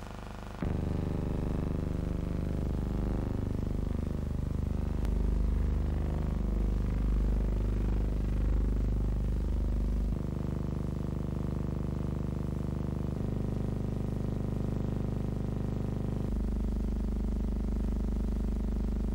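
Background music of sustained low chords that change every few seconds.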